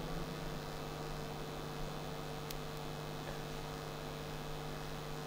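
Steady low electrical hum over a faint hiss: mains hum picked up in the recording, with no other sound standing out.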